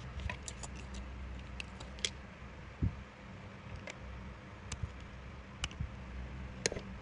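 Small metallic clicks and ticks of pliers working a wire, bending and coiling it into a fishing snap: several quick clicks in the first two seconds, then a few spaced out, with one soft thump about three seconds in.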